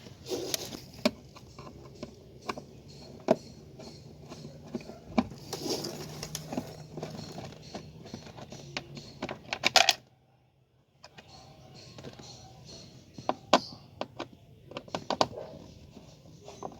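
Hand work on a car's plastic steering column cover: irregular clicks, taps and short scrapes of a screwdriver and screws against plastic as the screws are taken out. The sound cuts out briefly about ten seconds in.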